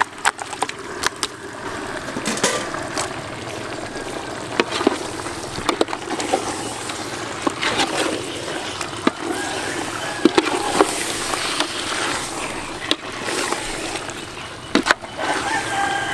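Raw goat meat chunks sliding wetly into a steel cooking pot and being stirred into curry paste, with scattered clicks and scrapes of a utensil against the pot.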